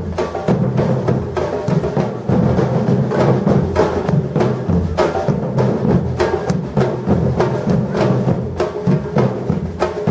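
Batucada drum ensemble playing: deep bass drums under dense, fast drum strikes and sharp clicks, in a steady rhythm.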